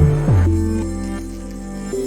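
Background music: sustained synth-like notes over a deep bass, with drum hits just before and after.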